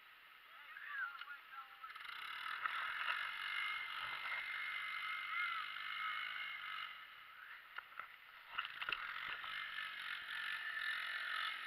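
Polaris four-wheeler's engine running a few metres ahead as it pulls through deep snow, under the scraping and rattling of the towed sled sliding over the snow close by, with a few sharp knocks about eight to nine seconds in.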